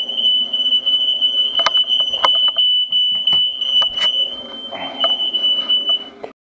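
Household smoke alarm sounding one continuous high-pitched tone, set off by smoke from a frying pan cooked with Frylight spray. A few sharp clicks sound over it, and it cuts off suddenly near the end.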